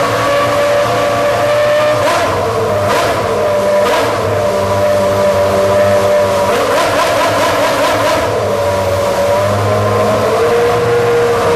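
Honda Formula 1 V10 engine running loud and steady at a held pitch, with a few brief sharp cracks early on and a short dip and recovery in pitch near the end.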